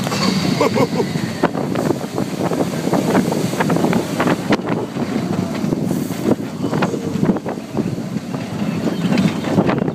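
Expedition Everest roller coaster train running along its track, a steady rattle with frequent sharp clacks, and wind buffeting the microphone.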